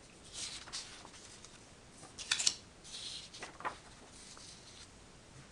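Papers and booklets rustling as they are handled and set aside, with a few short sharp rustles; the loudest comes a little over two seconds in.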